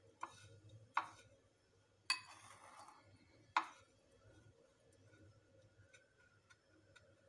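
A hand rolls a potato ball in breadcrumbs on a ceramic plate: four sharp clicks as fingers or the ball knock against the plate, and a short crumbly rustle about two seconds in. A few fainter ticks follow.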